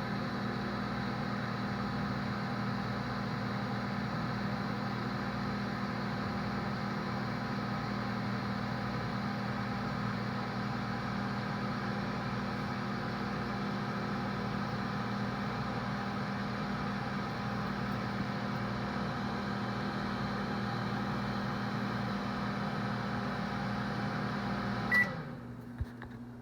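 Microwave oven running with a steady hum. Near the end it gives one short beep and the hum stops, followed by a small click: the heating cycle has ended.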